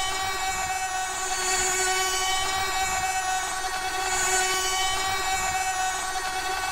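Small electric motor and gearbox of a remote-control toy excavator whining steadily at one pitch, with a hiss that swells and fades twice.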